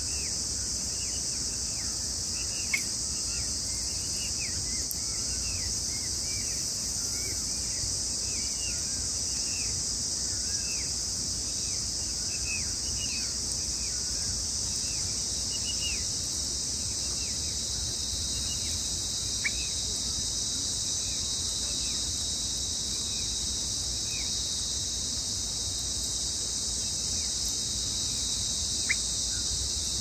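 Steady shrill drone of insects, with many short, falling bird chirps over it, thickest in the first half and only now and then later.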